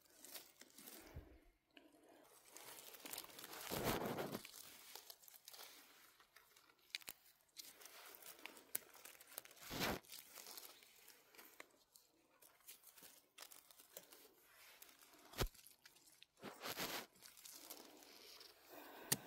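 Rustling and crunching of forest undergrowth: footsteps and hands moving through moss and twigs while picking mushrooms, with a few sharp clicks.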